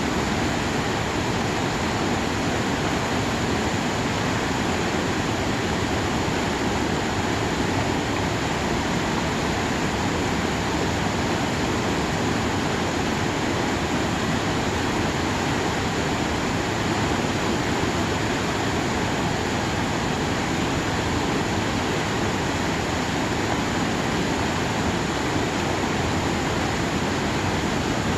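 A swollen mountain stream running high, its water rushing with a steady, unbroken noise.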